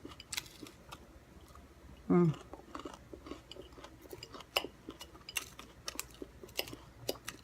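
Close-miked chewing and mouth sounds of someone eating, with scattered sharp clicks of a fork against a plate. A short, loud hum of the voice with falling pitch comes about two seconds in.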